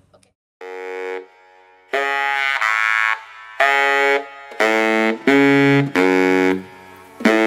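Outro music: a melody of loud held notes, each about half a second long, with short gaps between them.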